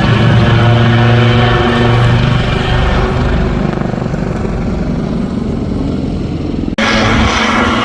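Aircraft engine running loud and steady with a low hum, easing off gradually. Near the end it cuts off abruptly and a different, higher-pitched aircraft engine sound starts.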